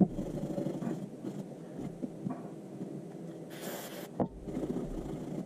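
Rubbing and handling noises from pistol parts being cleaned. About three and a half seconds in comes a short hiss, followed by a sharp click.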